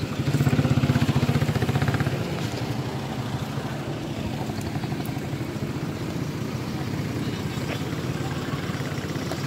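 An engine idling steadily, louder for the first two seconds.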